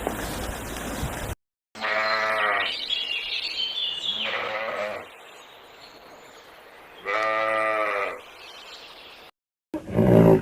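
A bleating farm animal calls twice: one long bleat of about three seconds that climbs in pitch, then a shorter one about a second long. Near the end a roar begins.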